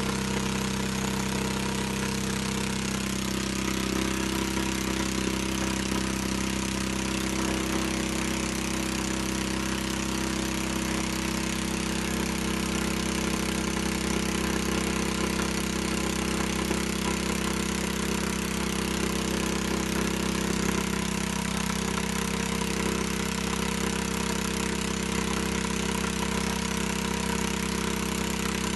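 Small engine running steadily at one speed, as of the engine-driven pump that forces drilling water through the hose and down the borehole rods. Its pitch shifts slightly a few seconds in, then holds.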